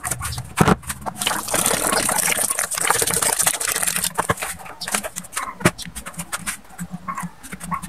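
Water poured from a plastic pitcher into a stainless steel bowl of chopped banana pith, a steady gush for the first few seconds. Then hands squeeze and rub the wet pulp in the bowl to rinse it, with many small splashes and scrapes.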